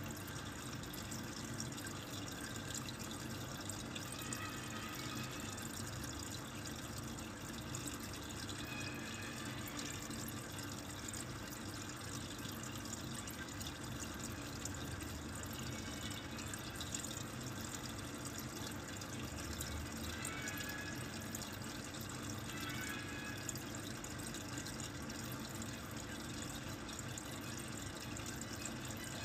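A steady, even hiss of background noise.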